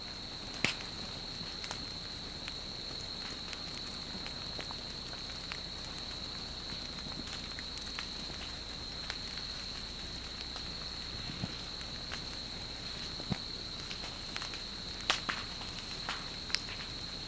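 Forest vegetation burning at the edge of an advancing lava flow: scattered sharp crackles and pops, the strongest about a second in and a cluster near the end, over a steady high-pitched whine.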